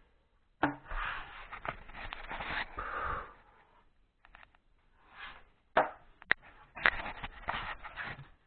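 A white board being handled and worked into place against a plastered wall: rubbing and scraping, with a sharp knock about half a second in and three more knocks in the second half.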